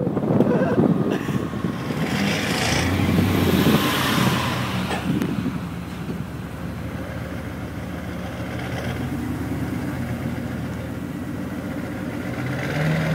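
Vehicle engine running during a slow drive. A rush of noise in the first few seconds fades about five seconds in, leaving a steady low engine drone.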